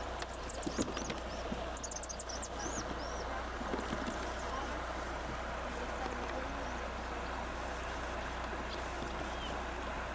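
Steady outdoor hiss over a constant low hum, typical of an old camcorder's microphone outdoors. Several short high chirps come in the first three seconds and a couple more near the end.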